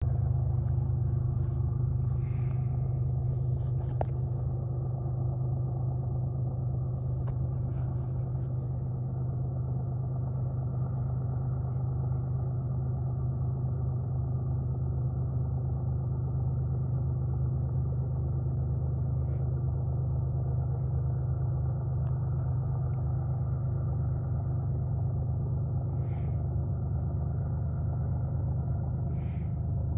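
Steady low engine drone that holds an even level throughout, with a few faint short high chirps or clicks over it.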